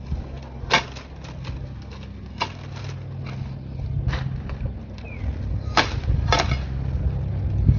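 Dry branches of a dying tangerine tree being cut back: about five sharp snaps spread over several seconds, over a low rumble.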